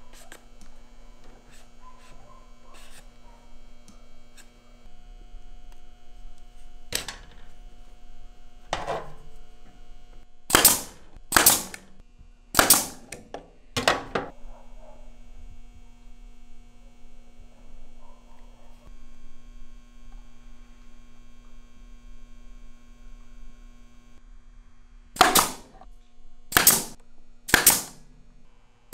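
Pneumatic nail gun firing nails into eastern red cedar boards: sharp cracks, two lighter ones a couple of seconds apart, then a quick run of four about a second apart, and after a long pause three more near the end.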